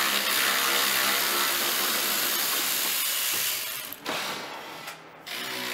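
Cordless drill-driver running for about four seconds, then a shorter run about four seconds in.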